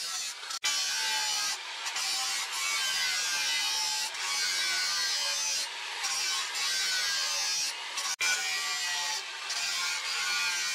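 Electric angle grinder with an abrasive disc grinding the steel of a leaf-spring blade: a steady grating hiss over a motor whine that wavers in pitch as the disc is pressed and moved. The sound breaks off for an instant twice.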